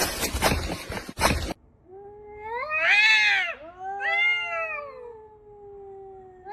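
Domestic cat meowing in two long, drawn-out calls, the second held for nearly three seconds with a slowly falling pitch. A noisy clattering stretch cuts off about a second and a half in, before the first call.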